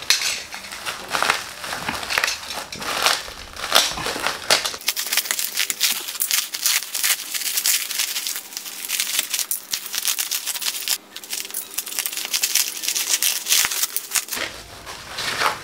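Plastic bubble wrap crinkling and crackling as it is pulled apart and peeled off by hand: a dense, continuous run of small crackles and rustles.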